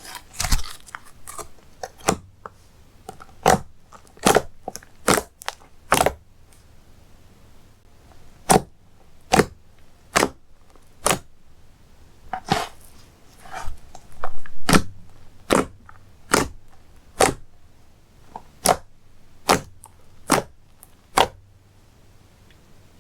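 Slime being worked by hand, giving sharp pops and clicks about once a second, with a denser squishy stretch about two-thirds of the way through.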